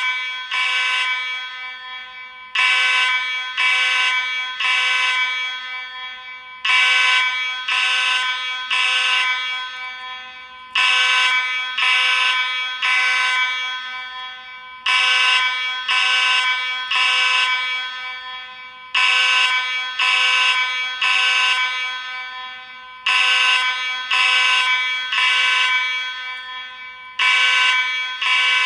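Space Age AV32 fire alarm sounding its buzzy horn tone in the temporal-three evacuation pattern: three short blasts, then a pause, repeating about every four seconds. Each group trails off in an echo.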